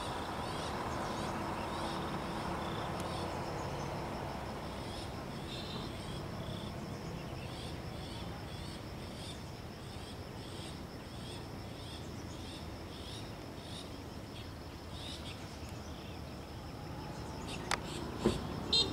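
Insects chirping: a steady high drone with short chirps repeating about once or twice a second, over a low rumble. A few sharp clicks near the end.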